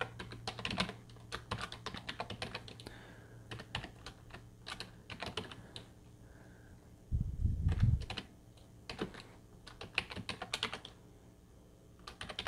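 Computer keyboard typing: irregular runs of key clicks with short pauses. A brief low rumble, the loudest sound, comes a little after seven seconds in.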